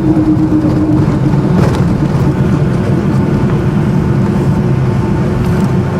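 Boeing 757-200's engines and rushing air heard from inside the passenger cabin during the landing: a loud, steady rumble with a humming tone that drifts slightly lower in the first second.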